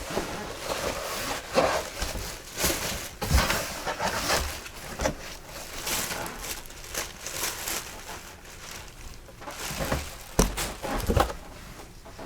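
Packaging being handled: irregular rustling and crinkling of packing material and boxes, with a few soft knocks.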